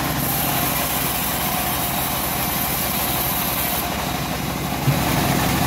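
Homemade bandsaw sawmill running steadily, with a single knock about five seconds in.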